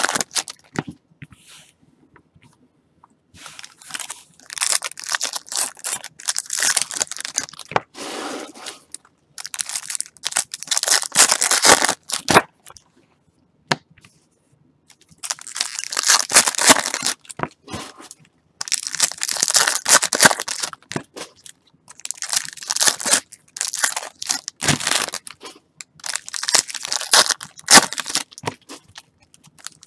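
2019 Topps Series 2 baseball card packs being torn open, their foil wrappers ripping and crinkling. It comes in about six bouts of a few seconds each, with short silent gaps between.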